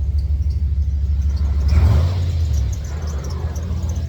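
Jeep Grand Cherokee engine idling steadily with a deep exhaust rumble through its Cherry Bomb muffler, the engine running right after an oil change. A brief swell of noise comes about two seconds in.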